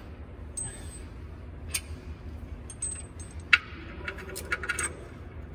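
Scattered light metallic clinks and ticks of steel bolts being handled and fitted into the side of a harvester cracker plate, some with a short high ring, the sharpest about three and a half seconds in and a quick cluster near the end, over a low steady hum.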